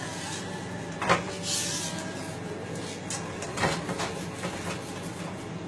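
A whisk working thick milk gravy in a pot to break up lumps, knocking against the pot a few times, the loudest knock about a second in, over a steady low hum.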